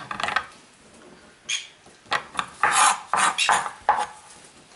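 Knife chopping fresh cilantro on a wooden cutting board: a few knocks at the start, a pause, then a quick run of chops from about two seconds in.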